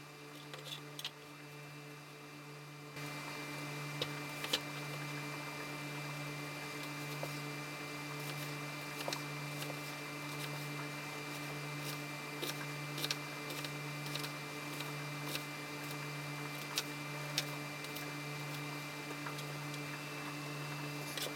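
Chef's knife chopping jalapeño and red onion on a plastic cutting board: scattered, irregular taps of the blade on the board, over a steady low hum that grows a little louder about three seconds in.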